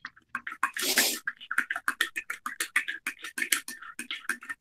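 Typing on a computer keyboard: a quick run of key clicks, about eight a second, with a short hiss about a second in.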